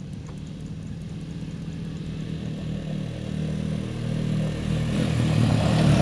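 Honda ATV engines running as two quad bikes ride toward the listener, growing steadily louder throughout.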